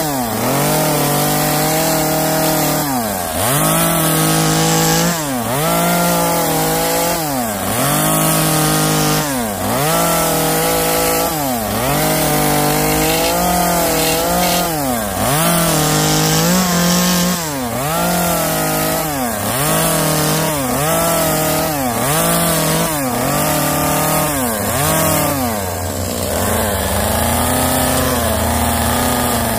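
Gas chainsaw with a narrow carving bar, revved over and over as its tip cuts and is drawn out of grooves in cedar. The engine pitch dips and climbs again a little slower than once a second. About 26 seconds in it drops back to a steady idle.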